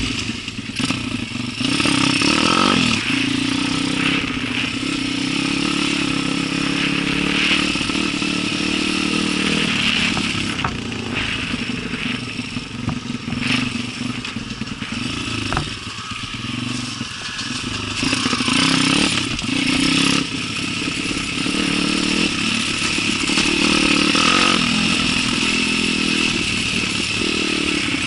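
Enduro motorcycle engine running under changing throttle, its level rising and falling, with scrapes and clatter mixed in.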